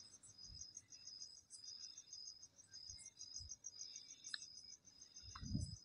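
Faint cricket chirping: a steady, rapid, high-pitched pulsing trill, with a few soft knocks.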